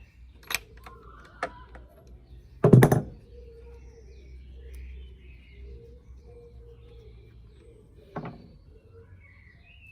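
Tools clicking and knocking on an outboard's spark plugs as they are taken out: a few sharp clicks, one loud clunk about three seconds in, and another knock near the end.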